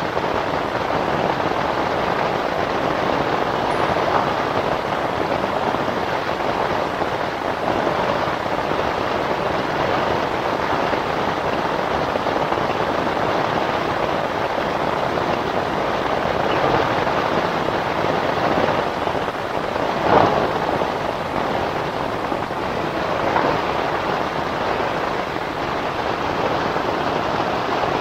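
Steady rain pattering on the fabric of a roof-top tent, heard from inside, with a brief louder crackle about twenty seconds in.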